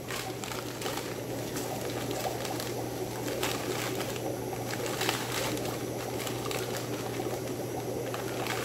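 Newspaper flyers being torn, crumpled and unfolded by hand, a continuous crinkling and rustling with sharp crackles throughout and a louder crackle about five seconds in, over a steady low hum.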